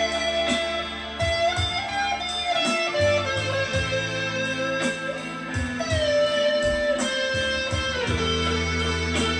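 PRS electric guitar played through a small Blackstar amp: a blues lead line of picked single notes with string bends that slide the pitch up and down, over sustained low notes.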